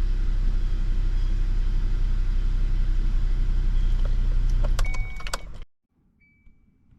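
2018 Kia Soul's engine idling steadily, then switched off about five and a half seconds in, with a few clicks as it stops. A short high beep sounds just before the engine stops and again just after.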